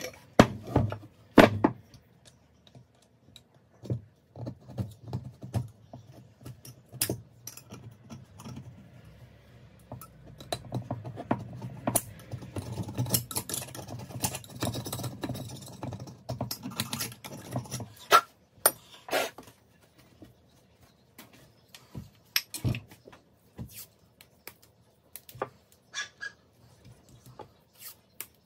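Metal clinks and clicks from a spanner, bolts and turbocharger housing parts being handled during reassembly. The clicking is denser in the middle, with a low hum under it, and sparser and more scattered near the end.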